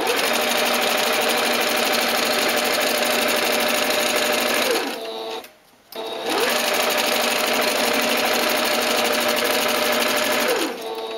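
Singer Advance sewing machine stitching a straight seam at a steady speed. It winds down to a stop about five seconds in, starts up again, and slows near the end.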